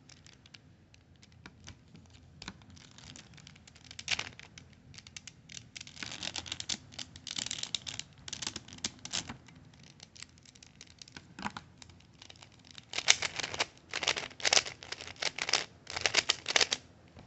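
Plastic Rubik's cube being turned by hand: bursts of rapid clicking layer turns, sparse at first and coming in quick runs later on, the longest near the end. It is a cube its owner finds locks up a lot.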